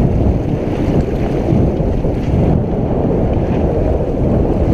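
Steady wind rumble on the microphone aboard a sailboat under sail, with water washing past the hull.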